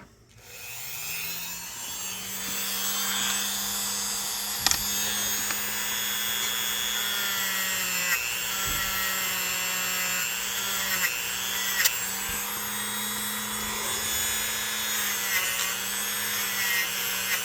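Small electric rotary tool spinning up, then running steadily while cleaning rust off a pocketknife's tang, its pitch dipping briefly a few times as it is pressed against the metal.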